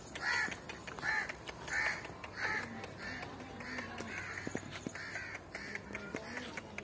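A crow cawing repeatedly, about eight harsh caws evenly spaced well under a second apart, fading out near the end.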